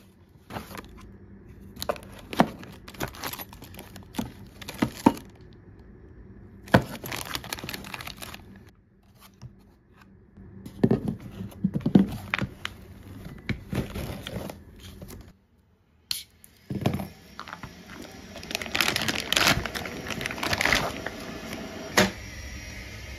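Cardboard box and dense foam packaging inserts being handled and pulled apart, a run of rustling and scraping with sharp taps and knocks.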